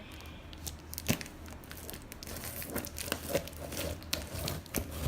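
Packaging being opened and handled: crinkling and tearing with irregular sharp crackles and snaps, the sharpest about a second in.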